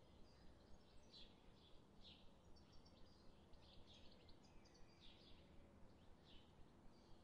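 Faint crackling and sizzling of bhallas (fritters) frying in shallow oil in a pan, with irregular small pops.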